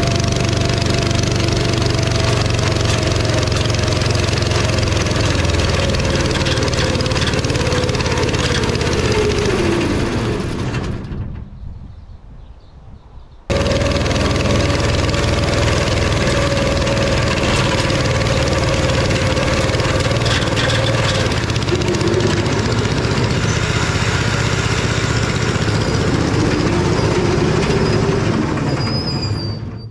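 15 hp Kawasaki V-twin engine running steadily, then slowing with a falling pitch and stopping about eleven seconds in. It is running again a couple of seconds later and keeps going with its speed rising and falling as the machine drives off under it.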